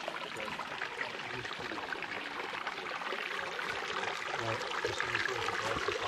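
Running water from a stream or small cascade, a steady hiss that grows slightly louder toward the end.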